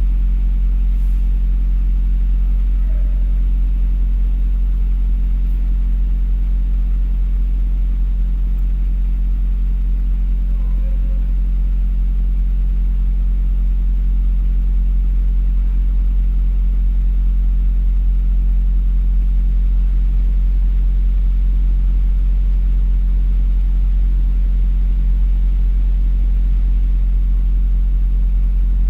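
Cummins ISX diesel truck engine idling steadily with a deep, even rumble.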